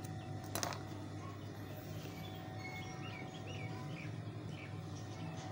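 A single short snip of small thread-trimming scissors about half a second in, over a steady low hum. Faint bird chirps sound in the background for a couple of seconds in the middle.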